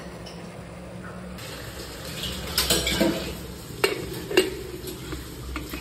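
Steel pressure cooker and its lid being handled and set in place: a cluster of metal clanks about two and a half seconds in, then two sharp knocks near four seconds, the second the loudest.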